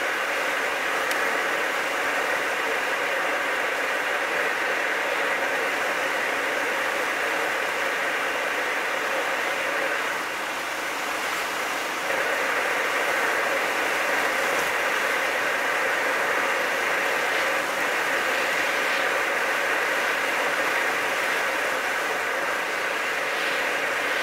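Car driving at a steady road speed, heard from inside the cabin: a continuous rush of tyre, road and engine noise, dipping briefly about ten seconds in before returning.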